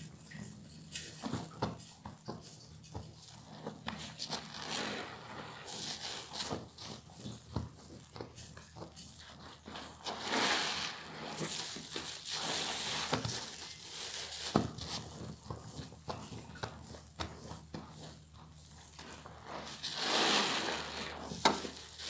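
Hands squeezing soap-soaked sponges in thick suds: wet squelching and fine crackling of foam bubbles, with longer hissing squeezes about halfway through and near the end.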